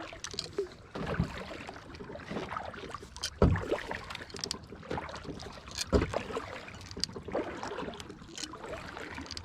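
Kayak paddling: paddle strokes swishing and splashing in the water, with a couple of sharper knocks about three and a half and six seconds in.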